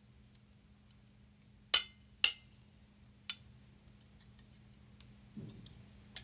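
Hammer blows on a strip of scrap metal over a body dolly, bending it to an angle. Two sharp, ringing metallic strikes about half a second apart, then a lighter one about a second later, with a few faint ticks of metal being handled.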